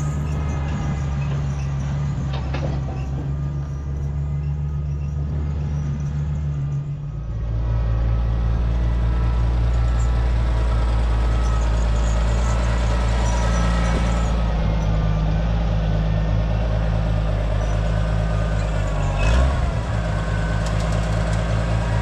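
Farm tractor engines running steadily. First a green tractor with chained tires pulls a manure spreader. About seven seconds in the sound changes to an Oliver tractor pulling a wagon.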